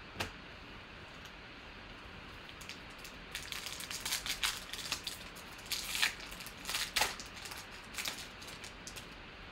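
Foil trading-card pack (Panini Elite) being torn open and crinkled in the hands: a run of sharp crinkling and crackling starting about three seconds in and stopping shortly before the end. There is a single light tap just after the start.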